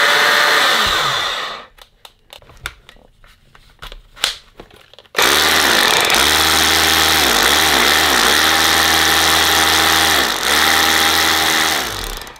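Metabo cordless drill's motor running free without load: a short burst that spins down, a few clicks, then a longer steady run of about seven seconds that dips in speed twice before winding down. It is running on its rebuilt battery pack with two replacement 18650 cells, and sounds as powerful as it has always been.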